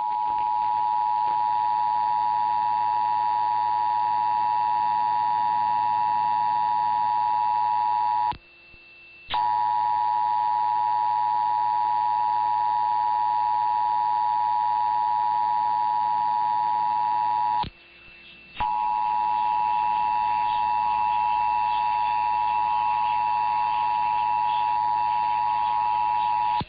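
Emergency Alert System attention signal: the steady two-tone alert (853 and 960 Hz together) sounding three times for about eight seconds each, with a gap of about a second between, over faint broadcast hiss.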